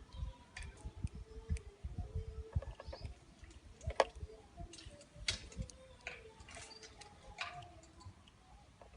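A caged jilguero finch feeding: irregular sharp clicks and taps of its beak on seed and the feeder, the loudest about four and five seconds in, among soft low knocks from the cage.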